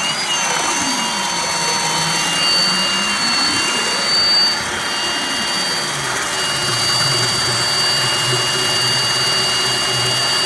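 Cordless drill driving a sectional drain cable, running steadily with a high motor whine. A lower tone dips, rises, then drops and settles as the spinning cable works through the drain line.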